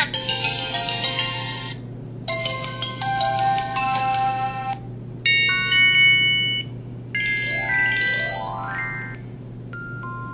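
Motorola StarTAC 2004 mobile phone playing its built-in alert sounds: four short ringtone melodies one after another with brief gaps, the fourth a quick rising run of notes, then a short two-note beep near the end.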